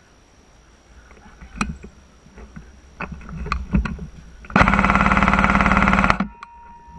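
An airsoft gun firing one full-auto burst, a rapid even buzz of shots lasting about a second and a half, that starts about four and a half seconds in and stops sharply. Scattered clicks and knocks come before it.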